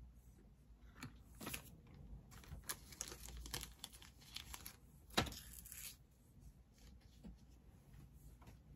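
Paper label sticker being peeled from its backing: faint papery rustles and small clicks, with one sharper click about five seconds in.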